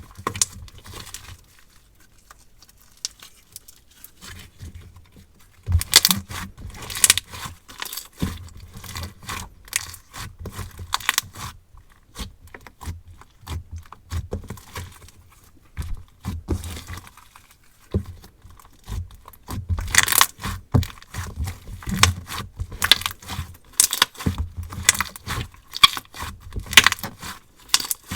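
Hands squishing, stretching and poking a soft marshmallow-textured slime, making irregular bursts of sticky clicks and crackly pops, quieter for a few seconds near the start and again in the middle.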